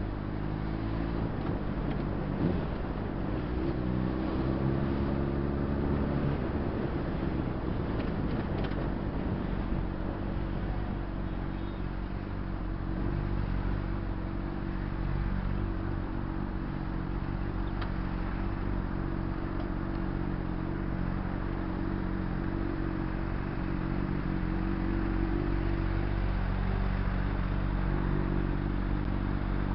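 Honda CBR600RR's inline-four engine running at low speed while filtering through slow traffic. Its revs rise a few seconds in and then hold steady, over constant wind and road noise.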